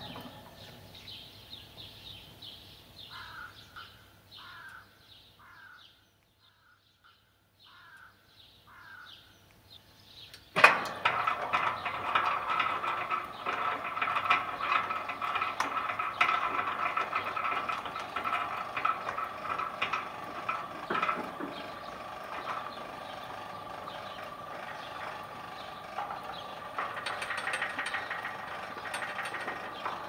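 Electric sliding gate: after a quiet spell with a run of short chirps, a sudden clunk about a third of the way in, then the gate's motor running steadily with a whine and rattle as the gate travels.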